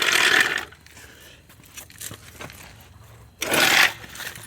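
Two bursts of rustling, scraping noise, one at the start and one about three and a half seconds in, with a few faint clicks between.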